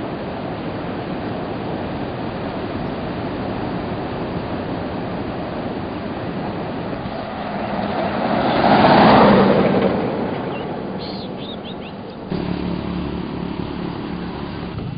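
Steady rushing noise, then a small pickup truck drives past, its sound swelling to a peak about nine seconds in and fading away. Near the end it changes abruptly to a lower, steady hum.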